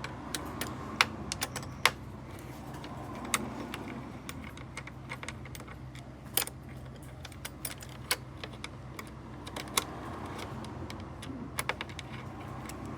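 Irregular light clicks and clinks of a screwdriver, small screws and plastic parts being handled during disassembly of a PlayStation 5 console, over a faint steady hum.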